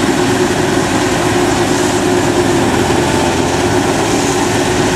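Kubota DC-93 Extra combine harvester's diesel engine and threshing machinery running steadily as it cuts rice: a loud, even mechanical drone with a constant hum.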